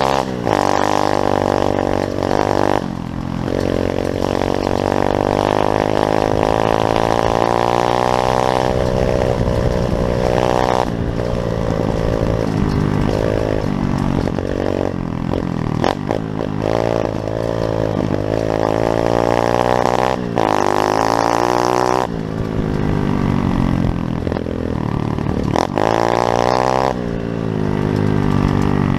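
Small pit bike engine running and revving, its pitch climbing and falling again and again with the throttle, with abrupt drops in revs several times.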